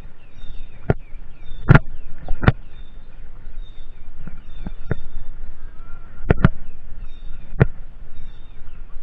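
Mountain bike riding over bumpy dry ground: a steady rolling noise with about nine sharp, irregular knocks and rattles from the bike jolting, the loudest about two seconds in. Faint bird chirps sound in the background.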